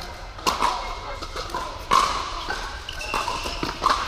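Pickleball paddles striking the hollow plastic ball during a doubles rally: several sharp pops about a second or more apart, echoing in a large indoor hall, with the ball also bouncing on the court.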